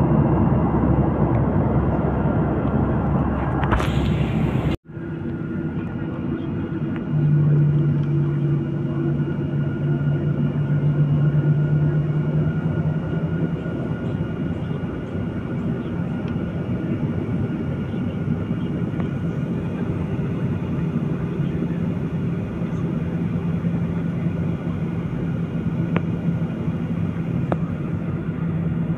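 Jet airliner's engines heard from inside the passenger cabin: a steady rumble with a low hum that shifts slightly in pitch, as the plane moves on the ground at the runway. A cut about five seconds in ends a louder, denser stretch of cabin noise.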